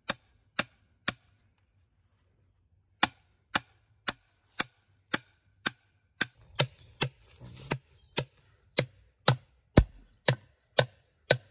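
Hammer striking a steel gate hinge pin, driving it into a new wooden gatepost: three blows, a pause of about two seconds, then steady blows at about two a second.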